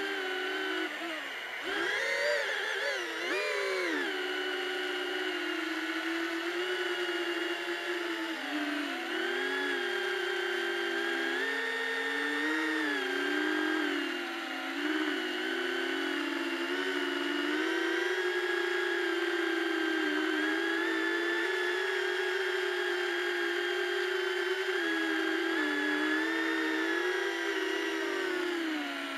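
Beta85X FPV whoop drone's brushless motors and ducted propellers whining as it flies, the pitch rising and falling with throttle. There are quick up-and-down swings a couple of seconds in, then a steadier whine with small changes.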